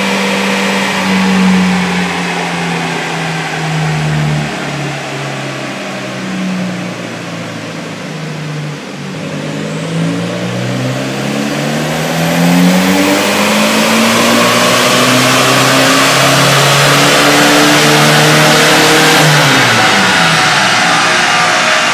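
Turbocharged Volkswagen Golf Mk4 engine on a chassis dynamometer, driving the rollers. Its engine speed steps down over the first several seconds, then climbs steadily and louder for about ten seconds in a dyno pull. Near the end the revs fall away sharply as the throttle is released.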